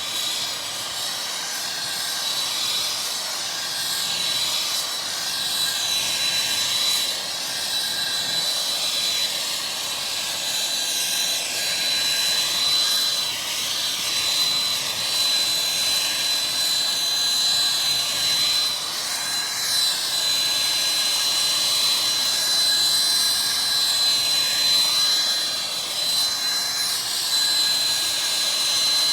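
Handheld gas torch burning steadily, a continuous rushing hiss of the flame with a steady high whistle running through it, as the flame plays directly on a heat-shield blanket.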